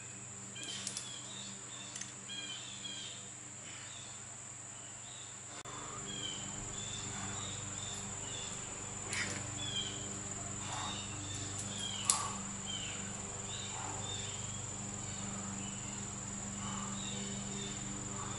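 Outdoor ambience: a steady high insect trill with scattered bird chirps over it. A few sharp clicks stand out, the loudest about twelve seconds in.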